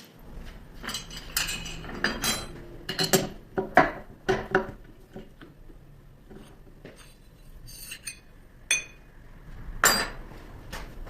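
Metal parts and tools being handled at a lathe: a run of sharp clinks and knocks with ringing, then two more single clinks near the end.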